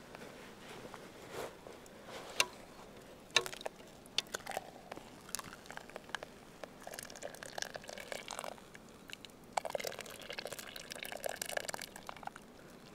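Water splashing and dripping off a metal bowl back into a cast-iron pot of hot water as the bowl is lifted out. Two sharp clinks come a few seconds in, followed by two stretches of running and dripping water.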